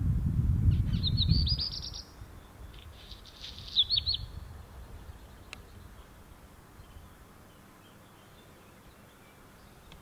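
A redstart singing two short phrases of quick high notes, about a second in and again near four seconds. A low rumble underneath dies away after about two seconds.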